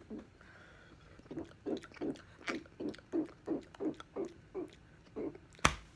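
A man gulping over and over, a short low gulp about three times a second, with one sharp click near the end.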